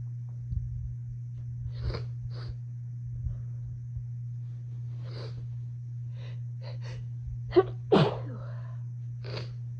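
A person sneezing during dusty house cleaning: a few breaths, then a run of quick catching in-breaths building up, then one loud sneeze near the end, followed by another breath.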